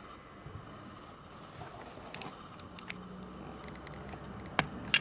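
Faint metallic clicks and taps as the snap-on case back of a vintage pocket watch is pried at the rim, then two sharp clicks near the end as the back snaps open.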